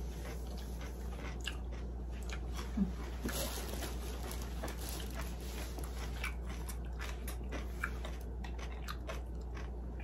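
Close-up chewing of kimchi, with scattered small crunches and clicks over a low steady hum.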